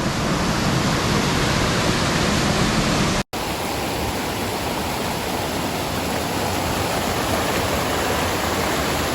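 Steady, loud rush of water from a rain-swollen rainforest stream. It breaks off for an instant about three seconds in and then carries on.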